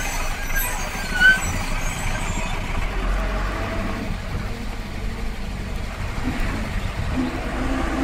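Busy street traffic: a bus's engine rumbling as it passes close by, over the steady noise of other vehicles. A few short high chirps sound in the first second and a half.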